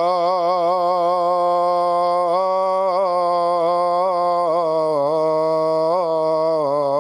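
Muezzin calling the adhan, the Islamic call to prayer: one man's voice holding a single long, unbroken sung phrase, ornamented with repeated wavers up and down in pitch.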